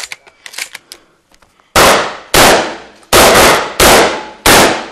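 A rapid string of about six shotgun shots, starting nearly two seconds in, each a sharp blast with a short ringing tail. A few faint clicks of gun handling come before them.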